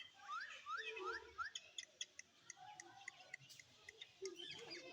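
Parrot chirping: a quick run of four short rising chirps, followed by scattered sharp clicks and softer short calls.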